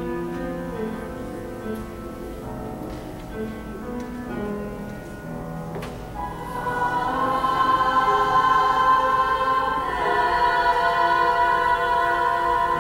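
A small choir singing in sustained chords, soft at first and swelling louder with higher voices about halfway through.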